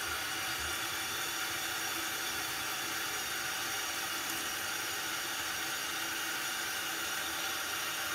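Kitchen tap running in a steady stream onto hands and into a stainless-steel sink during handwashing.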